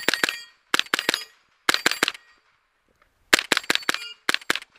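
Rapid semi-automatic rifle shots fired in quick strings, about five bursts of closely spaced cracks. Steel targets ring briefly after several of the hits.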